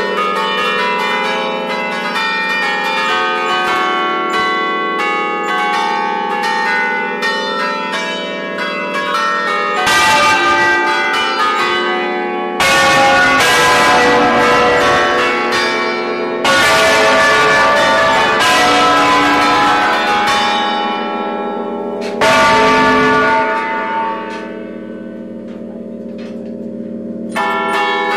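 Church bells played by hand from a lever keyboard, in a bell concert: quick successive strikes of several tuned bells at different pitches, ringing over one another. It swells to louder, fuller passages about ten, thirteen, sixteen and twenty-two seconds in, eases off for a few seconds after that, then picks up again near the end.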